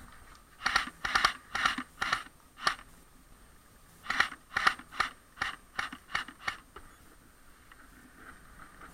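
Airsoft gun firing single shots in two volleys: about six sharp cracks, a short pause, then about eight more, roughly two or three a second.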